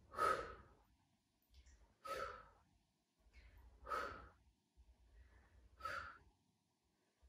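Four short, breathy exhalations from a woman exercising, spaced about two seconds apart in time with each repetition of a side-lying leg lift.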